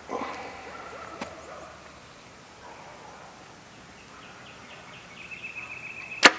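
A compound bow is shot from full draw: one sharp, loud snap of the string about six seconds in. Before it there is a long quiet hold, with a faint high chirping of short repeated notes.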